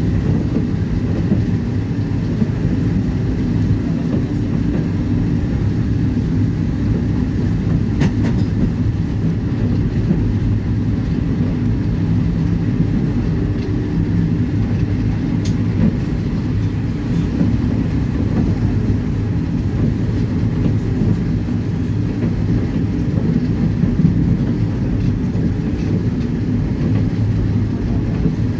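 Running noise of a BKM-845 tram under way, heard from inside the car: a steady, loud low rumble with a low hum running through it.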